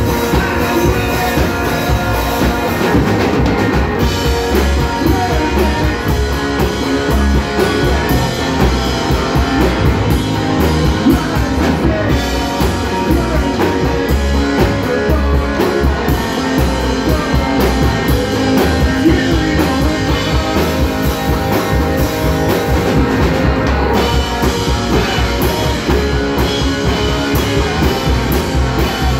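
Live rock band playing: electric guitar, upright double bass and drum kit together with a steady beat.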